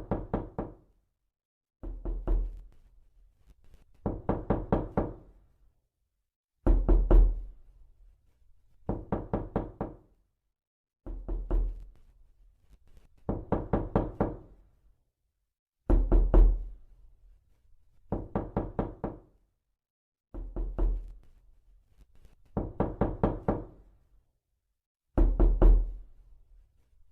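Knocking on a door, in about a dozen bursts of quick raps, one burst every two seconds or so. Some bursts are heavier pounding with a deep thud.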